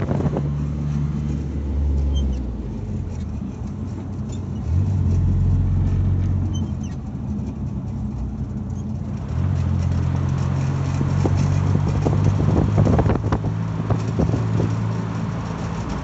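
Suzuki Jimny running, a steady low drone whose pitch steps up and down several times, with scattered light clicks and knocks in the second half: the abnormal noise the owner is trying to record.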